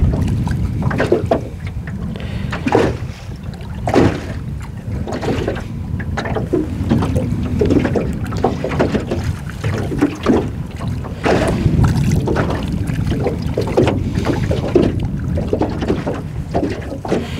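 Wind rumbling on the microphone, with choppy water lapping and slapping against the side of a metal boat in irregular knocks.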